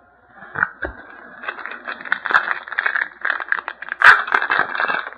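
Trading cards and a foil pack wrapper being handled, with close rustling, crackling and scraping full of small clicks, sharpest about four seconds in.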